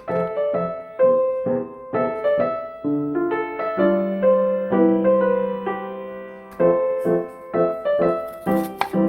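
Background piano music: a light melody of struck notes, with a longer held chord near the middle.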